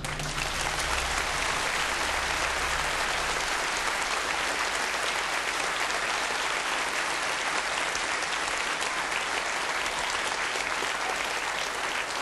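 A lecture-theatre audience applauding: dense, steady clapping.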